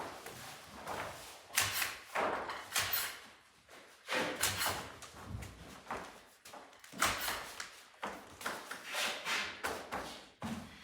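Irregular knocks, thuds and rustles of hands-on building work, a burst every half second to second with no steady rhythm.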